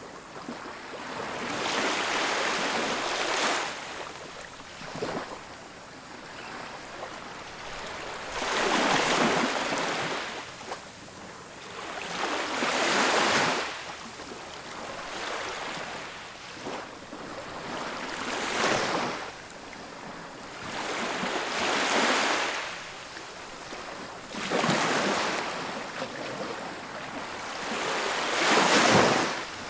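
Ocean waves breaking on a beach in a steady series of surges, each swelling and washing back every few seconds, the loudest one near the end.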